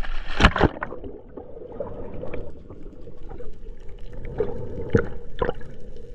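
Splash into the sea about half a second in, then muffled underwater sound with a steady hum and a few sharp clicks about five seconds in.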